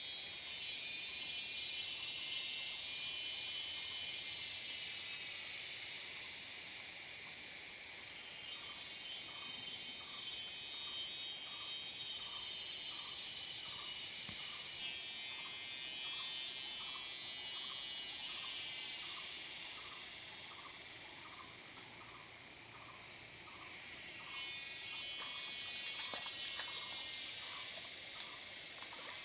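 Forest insects droning steadily at a high pitch, with an animal's short call repeated about once a second through most of the stretch.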